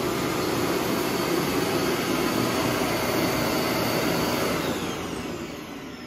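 Neabot NoMo Q11 self-emptying base station's suction motor running steadily as it draws dust out of the docked robot vacuum's bin. Near the end it winds down with a falling whine as the auto-empty cycle finishes.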